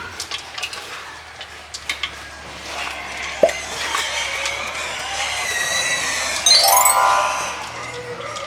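Music with chime-like notes and a quick rising glide near the end, over scattered clicks and knocks.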